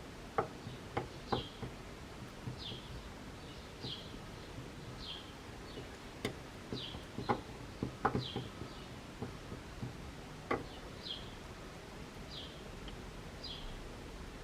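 A small bird's short, high chirps repeating about once a second, each a quick downward note. Scattered sharp clicks and light knocks come in clusters, the loudest in the first second and a half and again between about six and eleven seconds in.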